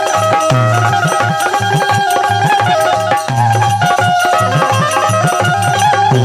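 Bundeli folk music instrumental break: harmonium holding a melody over repeated hand-drum strokes, with a frame of small metal cymbals shaken in rhythm.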